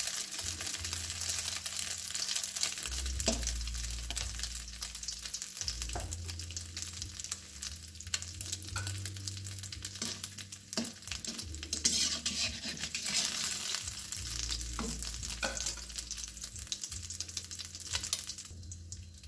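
Beaten egg with spring onion and bird's-eye chilli frying in hot oil in a wok: a steady crackling sizzle with a few sharp pops, quietening near the end.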